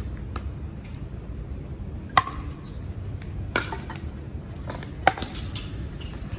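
Pickleball paddles hitting a plastic pickleball back and forth in a rally: a string of sharp pops about one every one and a half seconds, the loudest from the near players.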